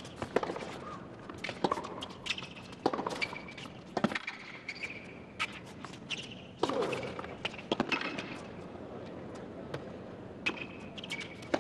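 Tennis rally on a hard court: sharp pops of the ball coming off the racquet strings and bouncing on the court, spaced about a second apart.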